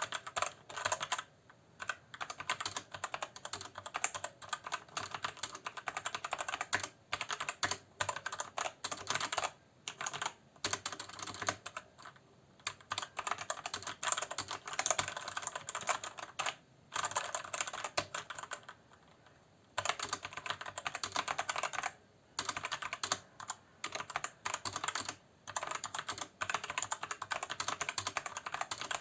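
Typing on a Marvo KG950 mechanical keyboard with Outemu Red linear switches: fast, continuous clacking of keystrokes in runs, with short pauses between them.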